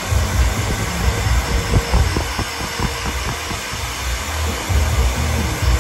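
Handheld hair dryer blowing steadily on a freshly airbrushed crankbait to dry the paint, with an uneven low rumble underneath.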